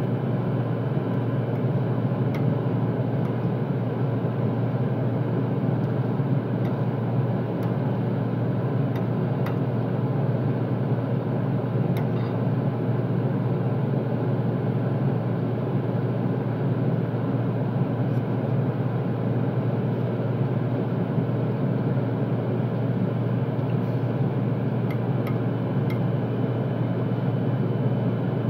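Steady low drone of commercial kitchen ventilation, with a few faint clicks of a metal fork against a plate.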